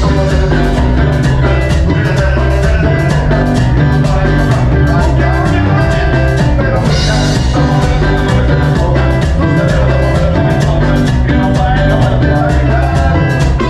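Cumbia band playing loudly, with a steady drum beat and a running bass line.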